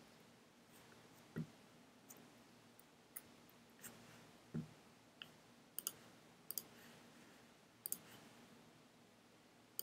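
Scattered sharp computer clicks, several in quick pairs, over faint room tone, with two short dull thumps about one and a half and four and a half seconds in.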